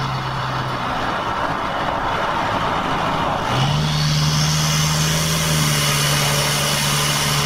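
Toyota 2KD four-cylinder turbodiesel droning at highway speed, heard from inside the cabin with road and wind noise. About three and a half seconds in, the engine note steps up and the noise grows louder as it accelerates.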